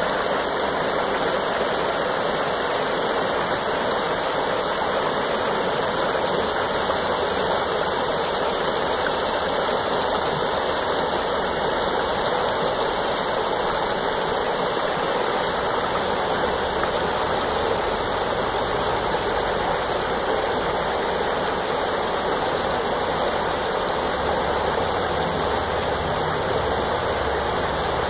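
Oak Creek's shallow riffles rushing steadily over and around boulders. A low rumble joins in underneath during the second half.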